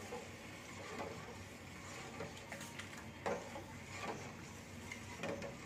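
A steel ladle stirring payasam in a stainless steel pot, giving faint scraping and a few soft knocks against the pot over a steady hiss.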